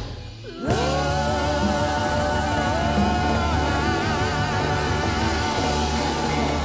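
Live soul band with singing: after a brief drop near the start, the band comes back in and voices hold long notes with vibrato over piano and a steady bass.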